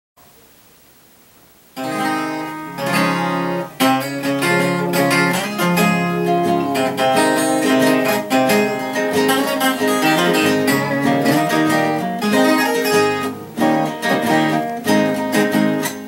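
A viola caipira and an acoustic guitar playing a plucked instrumental introduction to a Brazilian country (música caipira) song, coming in about two seconds in after a short faint hiss.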